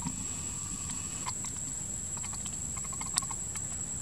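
Macaque eating a ripe mango: scattered small wet clicks and smacks of biting and chewing, with one sharper click a little after three seconds. A steady high-pitched whine runs underneath.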